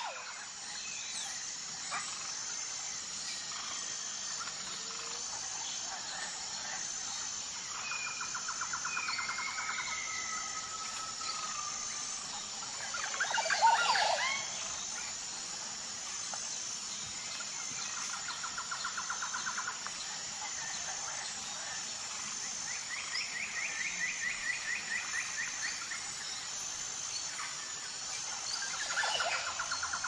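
Mixed birdsong from several wild birds: repeated rapid trills and short whistled calls over a steady high hiss, with one louder cluster of calls about fourteen seconds in.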